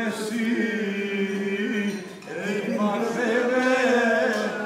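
Several men singing together in a chanting style, holding long drawn-out notes, with a short break about two seconds in.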